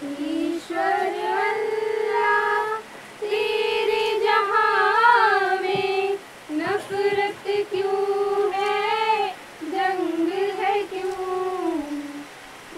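A solo high voice singing a slow, wordless melody in long held notes with vibrato, in phrases of a few seconds separated by short breaths.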